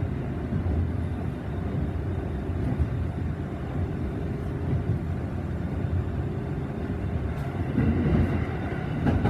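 Kintetsu 8600-series electric train running, heard from inside the car: a steady low rumble of wheels on rail and traction motors, with a few faint clicks and a slight swell near the end.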